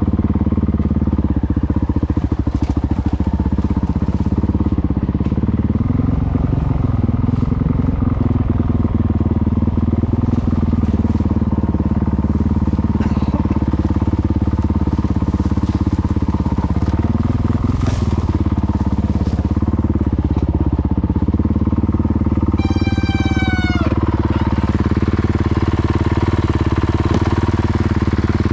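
Motorcycle engine running steadily, its pitch shifting a little up and down with the throttle. About 23 seconds in, a brief high squeal falls in pitch.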